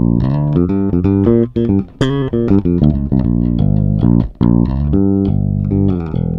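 Fender Dimension electric bass with flatwound strings playing a quick line of plucked notes, with short breaks about two and four seconds in. It runs through a crossover pedal so that only the high, shimmery band is compressed, for more sustain.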